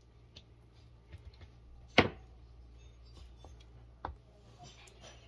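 Utensil knocks while tamale masa is spread: a sharp knock about two seconds in, a smaller one a couple of seconds later, and light taps and scrapes of a wooden spoon working masa between the bowl and the banana leaf.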